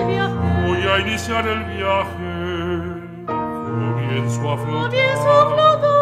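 Chamber music with an operatic voice singing with vibrato over sustained low notes. The texture thins briefly about three seconds in, then the ensemble comes back in fuller.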